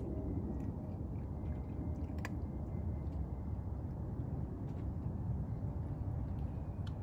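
A cat eating from a metal bowl, with a few faint clicks scattered through it, over a steady low rumble.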